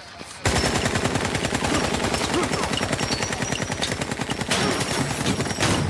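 Sustained automatic gunfire, a long rapid string of shots that starts abruptly about half a second in and keeps going without a break.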